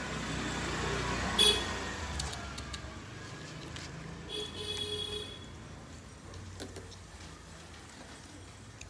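Handling noise as a Persian cat is held and syringe-fed liquid medicine, with a brief sharp sound about a second and a half in and a short high whine between four and five seconds in.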